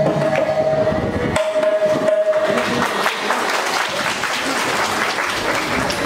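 A children's vocal group singing Carnatic music in raga Mohanam holds its last note, which stops about a second and a half in. Audience applause follows and carries on through the rest.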